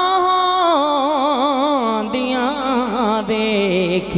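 A man singing a Punjabi naat, drawing out a long melismatic phrase with the pitch wavering in quick ornaments.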